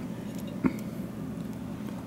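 Steady low background hum with one short, dull knock about two-thirds of a second in, as a waffle fry is lifted off a plate to be eaten.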